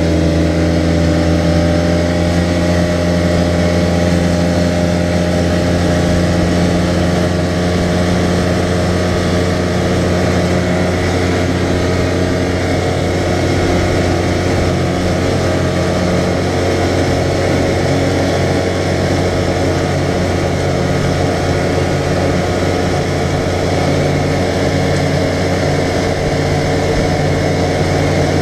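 A 2014 Arctic Cat side-by-side UTV's engine running at a steady cruising speed, a loud, even drone that shifts only slightly in pitch, over a continuous rushing noise.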